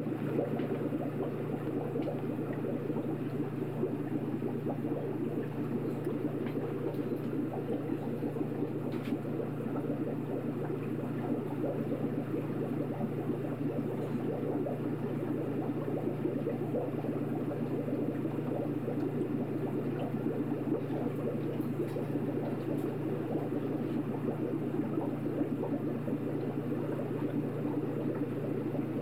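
Steady, low underwater ambience: an even, deep rumble of water noise that does not change.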